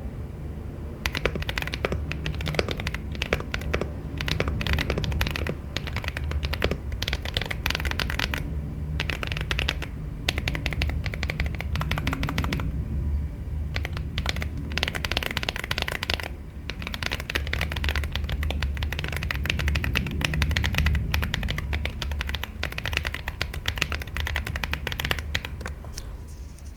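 Fast typing on a mechanical keyboard fitted with Aflion Panda tactile switches: a dense run of key clacks with a few short pauses. A steady low hum sits underneath.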